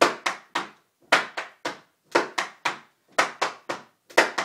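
Metal taps on dance shoes striking a hard floor in flatfooting steps: sharp taps in even groups of three, about one group a second, each with a short ring, the rhythm of three-sound walking steps.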